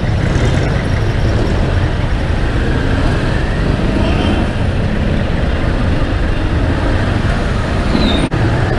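Road noise from a motorcycle riding slowly through wet city traffic: a steady low rumble of engines and tyre noise. A brief high squeak comes near the end.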